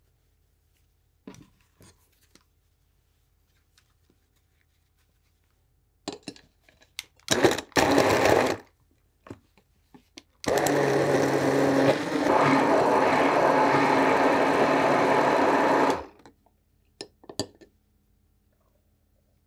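Hand-held stick blender running in a glass beaker, crushing ice into a milk, banana and coffee drink until the ice is gone. After a short first burst it runs steadily for about five seconds, with knocks and clinks of handling before and after.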